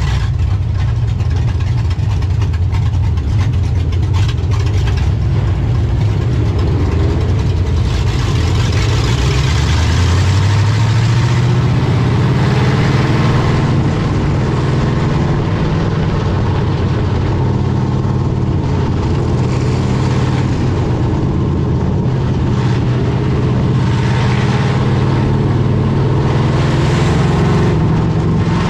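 Stock car race engine running hard, its pitch climbing about ten seconds in and then holding steady at the higher pitch.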